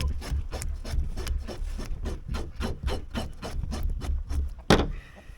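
Rapid rhythmic scraping of scales off a slimy trumpeter fish, about four strokes a second, ending with one louder sharp knock near the end.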